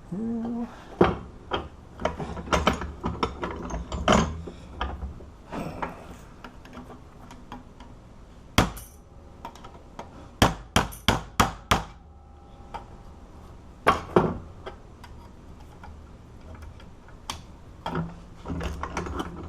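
Hammer blows and metal tapping on a cut-open padlock body to knock the brass lock cylinder loose. The knocks are irregular, with a quick run of about five blows about ten seconds in.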